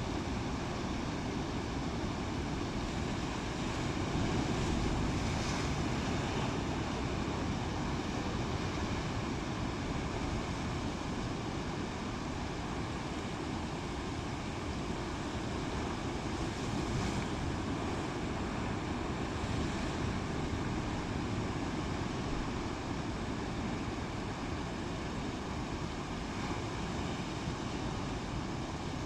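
Rough sea: a steady rush of waves and wind, with wind buffeting the microphone and a slight swell about five seconds in and again around seventeen seconds.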